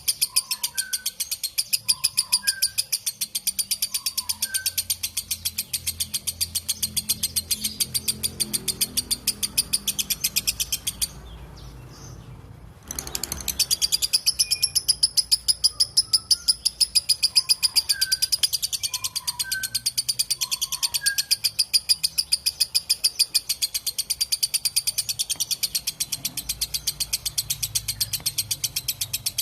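Lovebird 'ngekek': a long, fast, shrill chattering trill of rapid repeated notes, breaking off for about two seconds a little before the middle and then resuming. Fainter separate chirps sound underneath.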